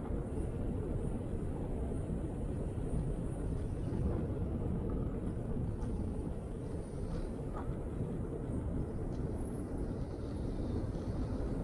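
Steady low rumble of a velomobile rolling along a cycle path: tyre and drivetrain noise with no clear tone.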